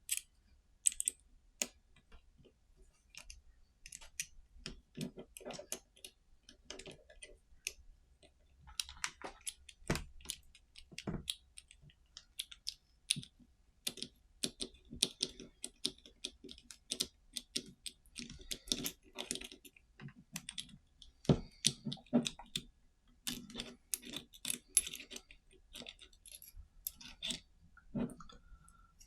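Small metal parts and hand tools clicking and clinking as a quick-release tripod mount is worked apart by hand: a run of irregular light clicks and taps, some sharper than others.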